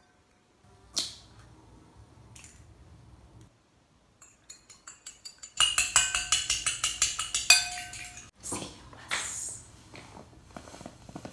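An egg cracked on a ceramic bowl with a sharp click, then a fork beating it in the bowl with rapid clinking, loudest from about six to eight seconds in. A plastic bag rustles near the end.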